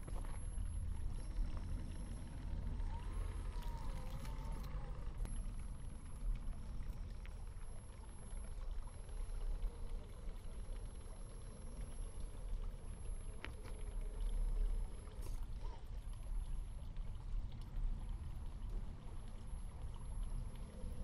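Low, steady rumble with water sounds, and at times a faint rising-and-falling whine from a small RC crawler's electric motor, all played back slowed down, so lower in pitch.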